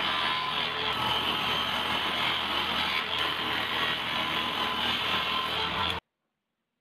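A power tool running steadily, with an even rushing whine, cutting off suddenly near the end.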